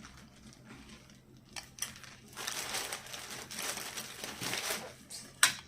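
Packaging crinkling and rustling as an item is handled and unwrapped, heaviest in the middle, with one sharp click near the end.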